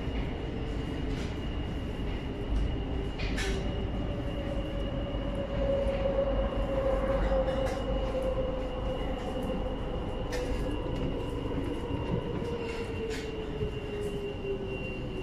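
Madrid Metro 8400-series electric train running, heard from inside the car: a steady rumble of wheels on rail with a high steady whine. The motor whine sinks slowly in pitch through the second half as the train loses speed, and a few sharp clicks and creaks come from the car.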